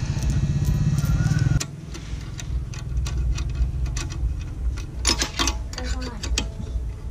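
Small metal clicks and clinks of a nut, washers and an open-end spanner as the exhaust hanger bolt is fitted and tightened, with a cluster of sharper clinks about five seconds in. A low background hum drops away about a second and a half in.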